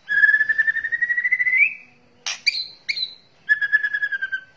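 White-rumped shama (murai batu) calling: a long, rapidly trilled whistle that rises slowly and flicks up at its end, then three short sharp calls, then another trilled whistle that slides slightly down.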